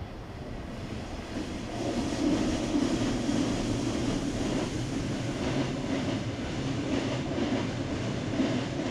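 2ES4K electric locomotive and its passenger train crossing a short railway bridge: steady rumble of wheels on rails, growing louder about two seconds in, with faint regular clicking as the cars pass.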